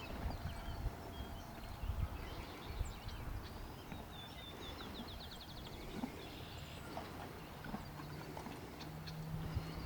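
Horses moving about with occasional soft hoof thuds, while small birds chirp, including a quick trill about five seconds in.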